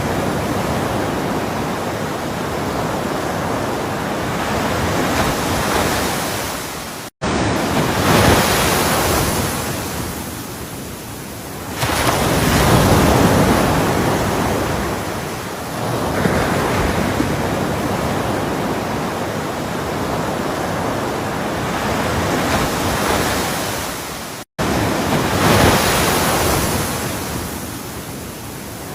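Ocean waves breaking on the shore, a steady rush of surf that swells and ebbs in slow surges every few seconds. The audio cuts out to silence twice, for a split second each time.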